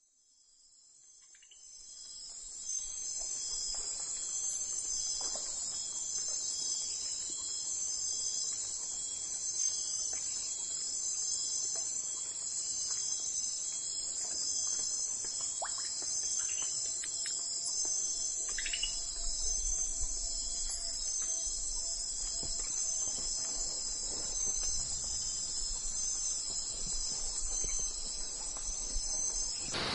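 Steady, high-pitched chorus of insects, several layered trills pulsing together, fading in over the first two or three seconds.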